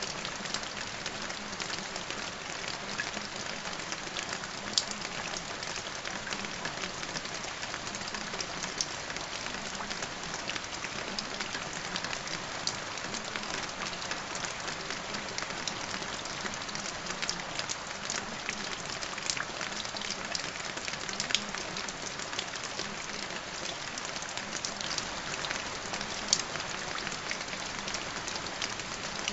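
Steady rain: an even hiss with frequent small drop ticks, a few of them louder than the rest.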